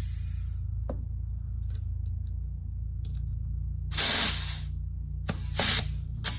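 Compressed air hissing in short bursts from a tire inflator's chuck being fitted to a UTV tire's valve stem, with air escaping around the chuck: one longer burst about four seconds in, then two shorter ones near the end. A steady low hum runs underneath.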